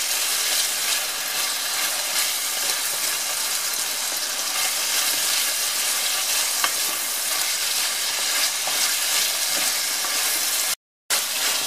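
Chicken strips and chopped onion sizzling in butter in a black enamel pan, stirred with a wooden spoon that scrapes and taps now and then; the chicken is being browned until it loses its raw colour. The sizzle is steady, with a brief moment of silence near the end.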